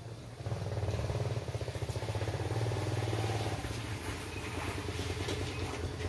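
A small petrol engine, like a motorcycle's, running steadily. It starts about half a second in.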